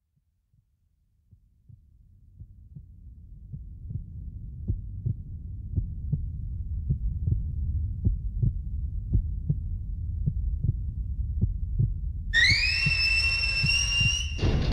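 Steam-boiler machinery fading in: a low rumble with steady low thumps about two and a half times a second. About twelve seconds in, a high steam whistle sounds for about two seconds, rising a little as it starts, then gives way to steam hissing.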